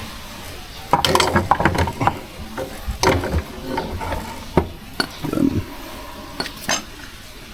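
Metal tools and motorcycle parts clinking and knocking in irregular bursts during rear-wheel work on a scooter, with a cluster of clatter about a second in and single sharp knocks later.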